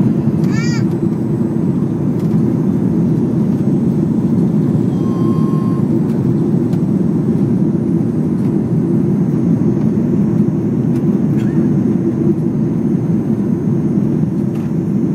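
Jet airliner cabin noise while climbing after takeoff: a steady roar of the engines and airflow, deepest in the low range, heard from a seat over the wing. A short high-pitched voice sounds about half a second in.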